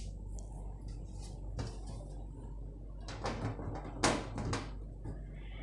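Rear side panel of a PC case being fitted and slid shut: a few light knocks and scrapes of the panel against the case, most of them in the second half.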